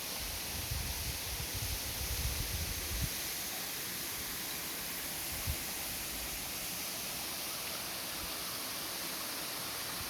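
Waterfall's steady rushing hiss. Low buffeting on the microphone runs through the first three seconds, and there is a single thump about five and a half seconds in.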